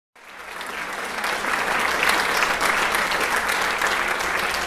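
Theatre audience applauding: dense clapping that swells up from silence over the first second or so, then holds steady.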